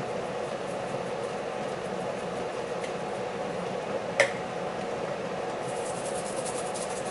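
Plastic spice jars shaken over a pot, a run of quick, even ticks of spice falling, with one sharp clack about four seconds in as a jar is set down on the stove top. A steady hum runs underneath.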